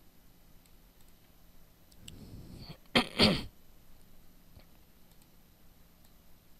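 Faint mouse clicks. About three seconds in, a person at the microphone draws a quick breath and lets out a loud, sharp two-part burst of breath, cough-like.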